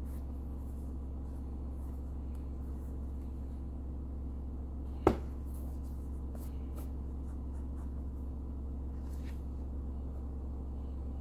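Faint rustling and scratching of a hand handling a leather sneaker over a steady low hum, with one sharp knock about five seconds in.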